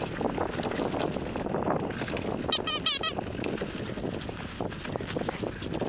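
Enduro mountain bike rolling over a grassy dirt track, with a rubber bulb horn on the handlebar squeezed about five times in quick succession about two and a half seconds in, honking to warn hikers ahead.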